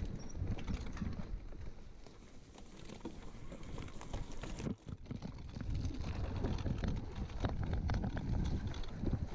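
Mountain bike riding rough singletrack: wind rumbling on the microphone, with tyre noise and a running clatter of short clicks and knocks from the bike rattling over rocks and bumps. The sound drops briefly about halfway through.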